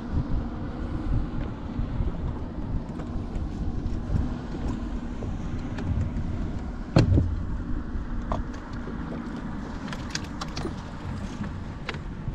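Uneven low rumble of wind buffeting the microphone on an open boat, with scattered light clicks and knocks from handling on the bow deck. One louder knock comes about seven seconds in.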